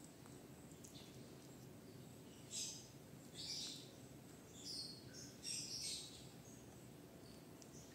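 Kitten eating chunky wet cat food from a plastic bowl, with about five short, wet chewing and smacking sounds starting about two and a half seconds in, over a faint steady background hiss.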